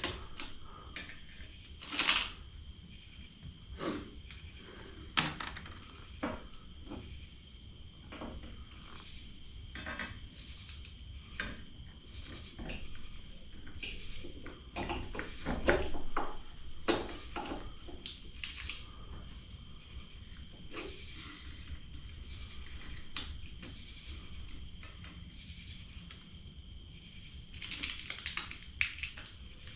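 Scattered clicks, taps and clinks of hand tools and parts being handled while a motorcycle is worked on, with a cluster of louder knocks about halfway through. Crickets trill steadily in the background.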